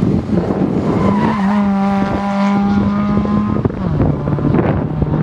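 Hyundai rally car's engine at high revs through a tarmac hairpin, holding one steady note. Nearly four seconds in the note drops to a lower pitch as the car pulls away.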